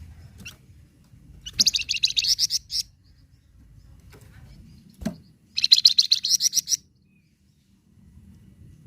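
Flamboyan songbird singing two fast, high trilled bursts of about a second each, some four seconds apart.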